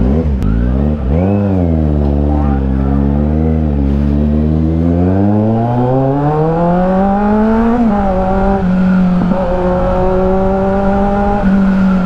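Kawasaki Z900's 948 cc inline-four with an aftermarket exhaust under way. The revs swing up and down in the first few seconds, then rise in a long pull for about three seconds, dip briefly and hold steady.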